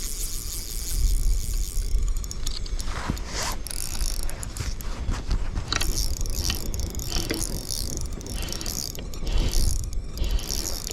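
Fishing reel clicking and ratcheting while a hooked lake trout is fought and reeled in, as the line is wound in and the drag gives line. A low rumble runs underneath.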